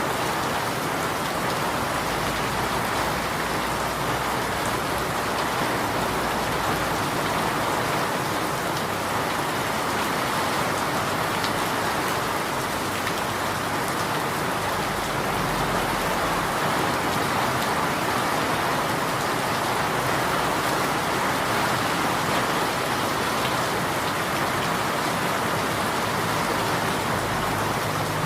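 Steady rain falling in an even, unbroken patter.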